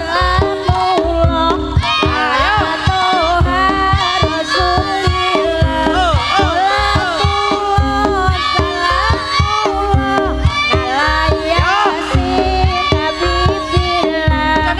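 Javanese jaranan gamelan music played loud through a sound system: fast, steady kendang drumming under a high, wavering melody line.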